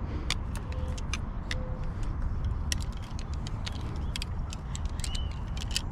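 Irregular light clicks and ticks from fishing rods being handled and packed up, over a steady low rumble.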